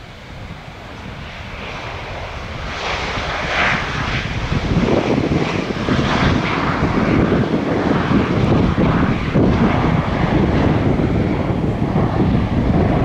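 Boeing 737-700 CFM56 jet engines rumbling as the airliner comes in to land. The sound grows louder over the first few seconds, with a brief hiss on top, then holds a loud, steady rumble.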